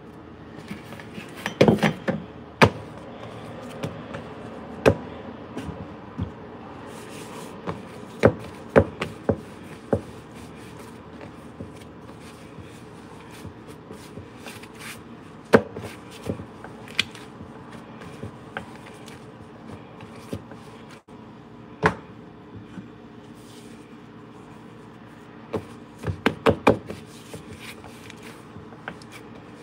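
Paratha dough being kneaded by hand on a countertop: irregular knocks and thumps as the dough is pressed, turned and pushed down, with clusters of quick knocks near the start and near the end, over a faint steady hum.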